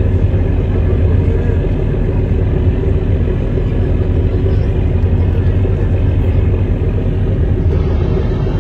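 Boat engine running steadily, a loud low drone.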